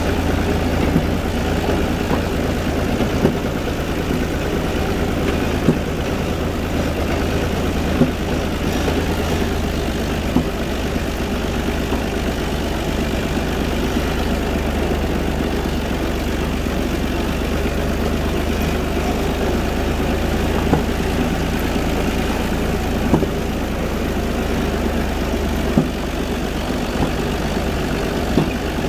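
UTB 445 tractor's diesel engine running steadily at an even speed, with a few brief clicks scattered through.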